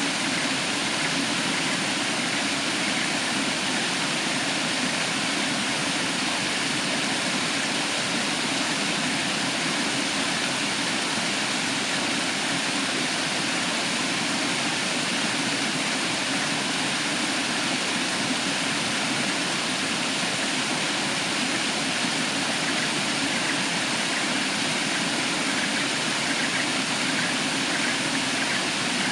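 Waterfall water rushing in a steady, unbroken roar of white noise.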